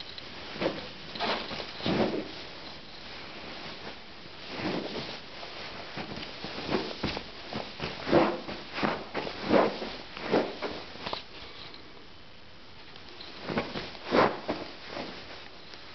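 Irregular scuffs and soft knocks of leather boots shifting on a cushion and tiled floor, about a dozen spread unevenly, with a quieter stretch shortly after the middle.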